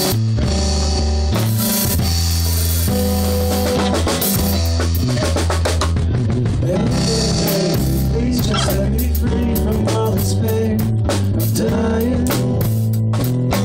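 Band music: a drum kit, with snare and bass drum, plays over a bass line that changes note every second or so.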